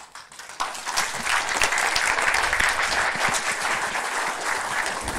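Audience applause at the end of a talk: many hands clapping, building within the first second, holding steady, then starting to fade near the end.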